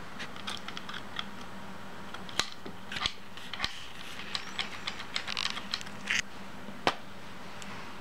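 Irregular small clicks and taps, a few of them sharp, as a key-like decoder tool is handled against the face of a MIWA 3800 lock cylinder held in a vise. A faint steady hum runs underneath.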